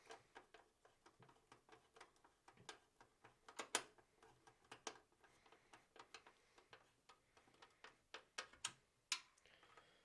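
Screwdriver turning screws into the steel drive bay of a PC case: a run of small, irregular metallic clicks and ticks, loudest about a third of the way in and again near the end.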